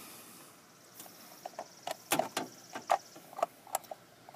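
Fingers unscrewing loosened 10 mm bolts from the plastic cover and bracket of the accelerator pedal position sensor. There are a few light, irregular clicks and taps of metal and plastic being handled.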